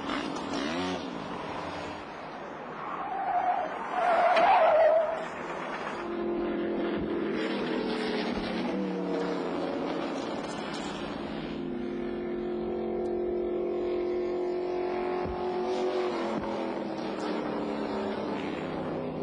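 Vehicle engines running and tyres squealing during stunt driving, the loudest squeal about four to five seconds in. From about six seconds a steady engine note holds, drifting slowly up and down in pitch.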